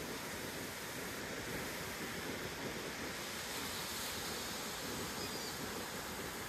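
Ocean surf washing steadily, an even rushing hiss with no single wave break standing out.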